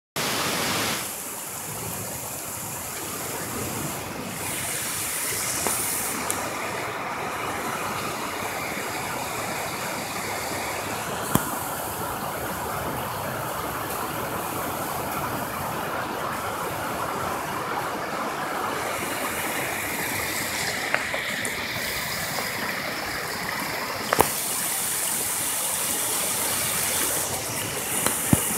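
Heavy rain falling steadily and muddy floodwater flowing through a street, a continuous wash of water noise. A few short sharp clicks stand out over it.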